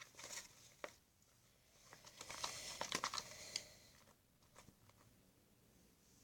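Fluffy shaving-cream slime being mixed, with sticky crackling and tearing sounds as the mixture pulls apart, busiest in the middle.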